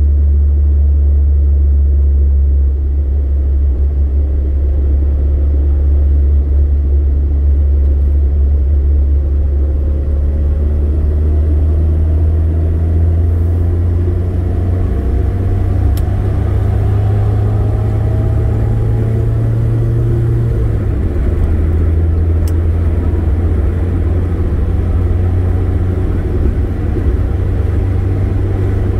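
Car engine and road noise heard from inside the cabin: a strong low drone whose engine note climbs steadily while accelerating up a freeway on-ramp, then drops about two-thirds of the way through as the car shifts up and settles at freeway speed.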